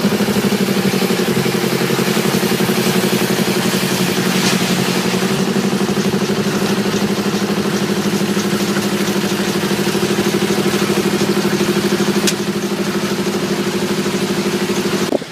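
An engine running steadily at an even speed, with a single sharp click about twelve seconds in.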